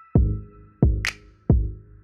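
Trap-style background music: deep bass drum hits three times, with a snare hit about a second in.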